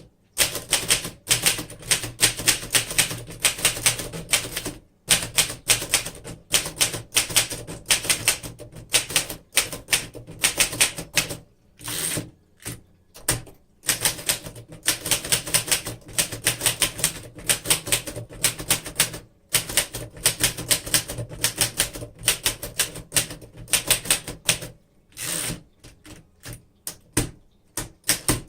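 1938 Remington Model 5 portable typewriter being typed on at a steady pace: rapid type-bar strikes in long runs, broken by a few short pauses. The keys type crisply without sticking.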